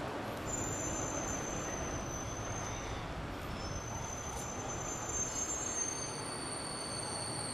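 Steady background noise with several thin, high-pitched tones, each held for a second or two, coming and going and overlapping.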